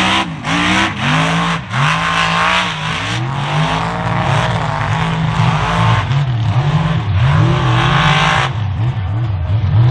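Lifted Chevy mud truck's engine revving hard, its pitch rising and falling over and over as the truck churns through mud. A loud rushing noise rides over the engine and stops about eight and a half seconds in.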